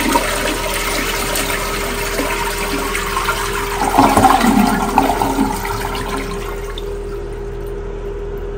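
Toilet flushing with its water supply shut off: the tank drains through the held-open flapper into the bowl without refilling. The rush of water swells about four seconds in, then tapers off over the last few seconds as the tank empties.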